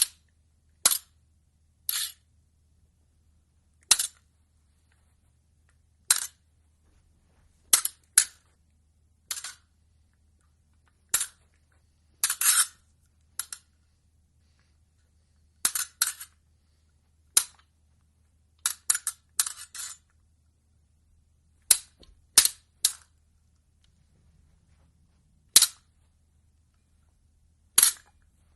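Fencing blades clashing: sharp metallic clicks with a brief ring, coming irregularly, sometimes a single strike and sometimes a quick run of two to four, with pauses of a second or two between.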